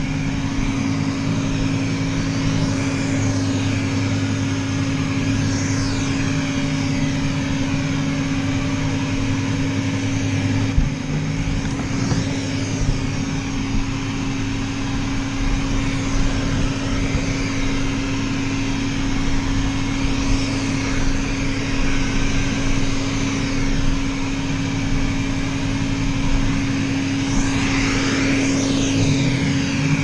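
WYZE robot vacuum running, heard up close from on top of its lidar unit: a steady motor drone with a constant hum, and one short knock about eleven seconds in.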